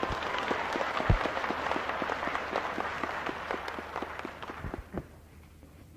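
An audience applauding in a hall, the clapping fading out about five seconds in, heard on an old cassette tape recording.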